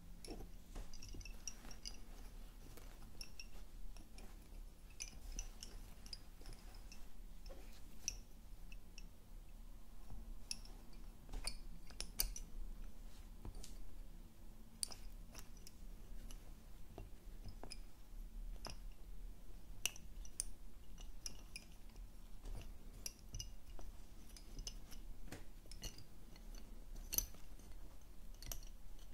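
Wooden Honiton lace bobbins clicking and knocking lightly against one another as pairs are crossed and twisted: irregular small clicks, a few with a brief bright ring.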